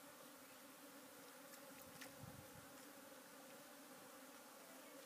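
Near silence: a faint steady low hum over hiss, with a few faint clicks and a soft low thump about two seconds in.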